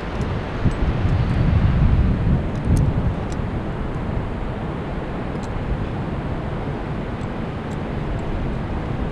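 Wind buffeting the microphone: a steady rushing noise with a stronger gust in the first few seconds, and a few faint clicks of carabiners and climbing hardware.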